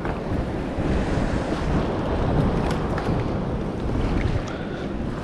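Wind blowing on the microphone over the sound of water, a steady rushing noise that is heaviest in the low end.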